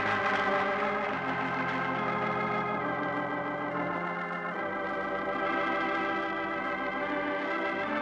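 Organ playing the program's closing theme music: sustained chords that shift every few seconds.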